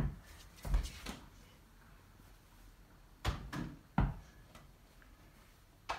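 A small toy basketball bouncing on a hard kitchen floor as it is dribbled: short thuds in small irregular groups with pauses between.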